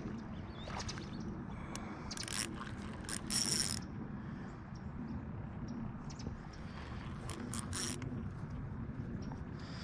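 Fishing reel being cranked to bring in a fish, a steady mechanical ratcheting whir. Louder rustling scrapes come in about two to four seconds in and again near eight seconds.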